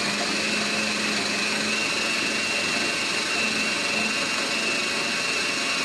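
Electric kitchen blender running steadily at full speed, a continuous motor whine, as it blends the burger ingredients into a crumbly mixture.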